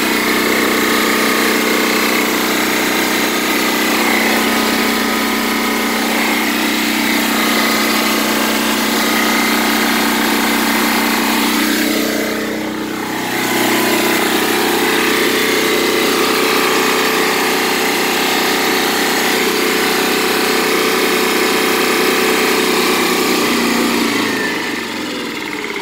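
A 6,000-watt diesel generator running steadily, a loud, even engine sound; it falls away near the end.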